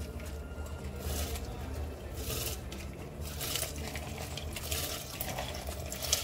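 Water boiling in a pressure cooker, with soaked rice and chana dal poured from a bowl and splashing into it in several noisy swells.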